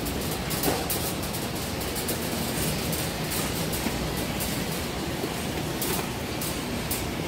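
Shopping cart rolling along a hard floor, its wheels and wire basket rattling steadily, with a few sharper clicks.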